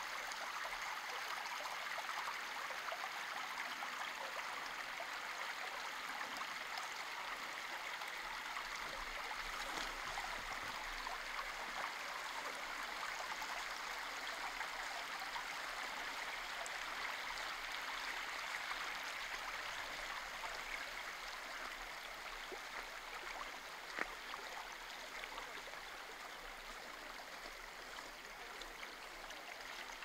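Steady rush of running water, like a stream or channel flowing, with one sharp click about 24 seconds in.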